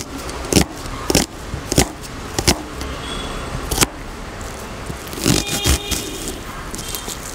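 Hot oil in a steel frying pan sizzling and crackling as cubes of steamed egg mixture are dropped in to fry, with sharp pops every second or so.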